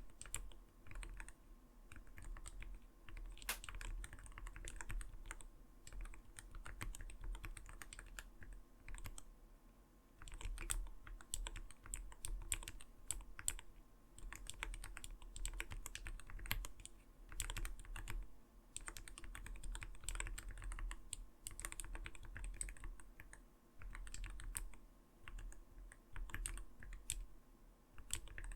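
Continuous typing on an Arbiter Studio Polar 65 mechanical keyboard: rapid keystrokes in runs of a few seconds with short pauses between, each key a soft, low-pitched 'kotokoto' clack rather than a light click.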